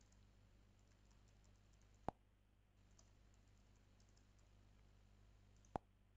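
Faint computer keyboard typing with two sharper clicks, one about two seconds in and one near the end, as the sign-in is submitted.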